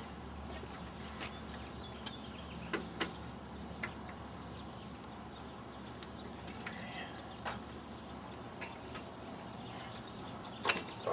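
Scattered light metallic clicks and taps of parts and hand tools being handled while a throttle body is unbolted from an engine, with a louder clatter near the end.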